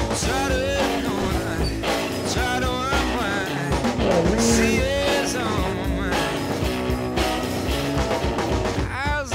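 Rock music with a singing voice, playing steadily as a soundtrack.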